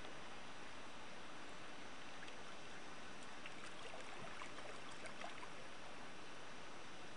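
Shallow stream water running steadily over riffles, with a few faint trickling flecks in the middle.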